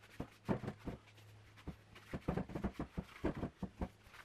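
A cloth rubbing and scrubbing over the machined surface of an aluminium Toyota 3VZ-E cylinder head in quick, irregular strokes, about three or four a second, as the head is wiped clean.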